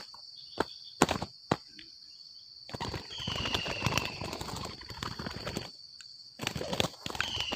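Spotted doves fighting: a few sharp wing slaps in the first second and a half, then long stretches of fluttering wingbeats as one bird takes off. A steady high insect hum runs underneath.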